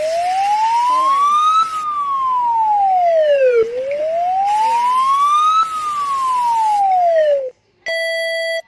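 Singapore's public warning siren wailing slowly, rising for about two seconds and falling for about two, twice over. It breaks off near the end, and a steady electronic alert tone starts.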